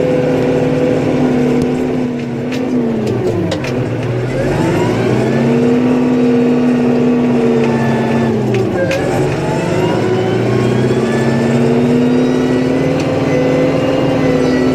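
Engine of a snow-plowing vehicle running steadily. Twice its revs drop and climb back up, with a few sharp clicks around each dip.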